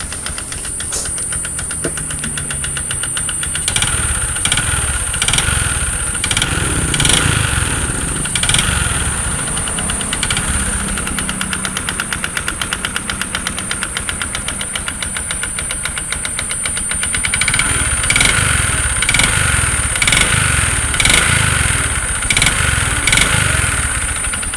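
Bajaj Platina 100's single-cylinder four-stroke engine running and being revved several times, with quick throttle blips about once a second near the end. It carries a piston knock that the mechanic puts down to the piston rather than the crank; the piston turns out scored from having once seized for lack of oil.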